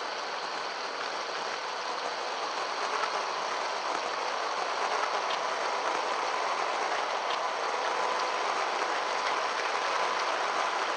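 Yikong YK4102 Pro 1/10-scale RC crawler driving on a trail: its electric motor and gears give a thin steady whine that grows clearer about four seconds in, over a steady hiss with a few small ticks.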